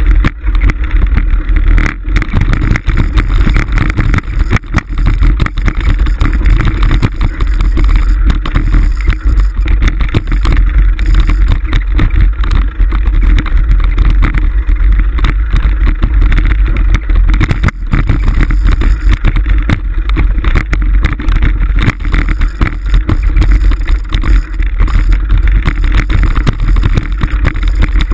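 Continuous low rumble and wind buffeting on a mountain bike's handlebar-mounted action camera as it rides a rough dirt singletrack, with frequent knocks and rattles as the bike jolts over the ground.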